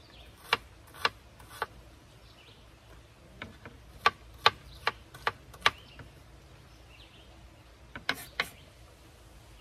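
Chef's knife dicing an onion on a wooden cutting board: sharp knocks of the blade striking the board, about two to three a second, in three short runs with pauses between.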